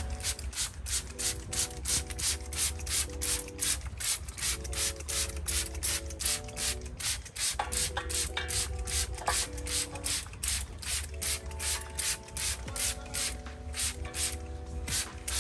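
Hand-held trigger spray bottle squirting again and again, about three short sprays a second at an even rhythm, soaking a vanda orchid's stem with a hydrogen peroxide solution against fungus.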